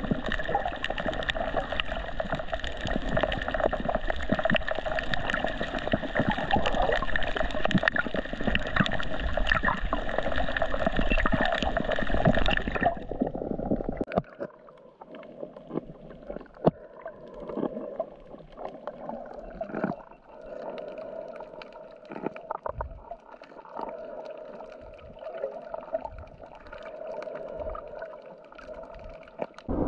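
Underwater sound picked up by a camera beneath the sea: gurgling water noise dotted with clicks and crackles. It is dense and fairly loud at first. About thirteen seconds in it drops suddenly to a quieter hiss with only scattered clicks.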